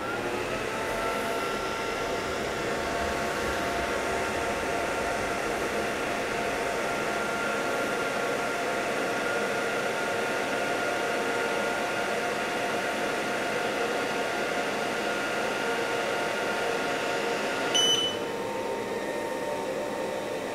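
xTool F1-series galvo laser engraver running an engraving job: a steady whir of its fan with several steady whining tones on top. About 18 s in, a short high beep sounds and the highest whine stops as the job finishes, leaving the fan running.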